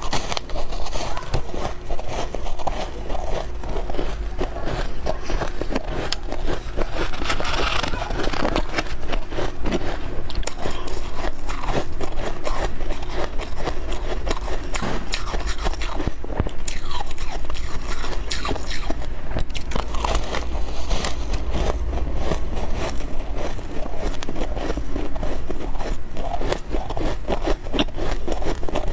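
A person biting and chewing soft freezer frost (snow ice) in a continuous, dense run of crunches and crackles.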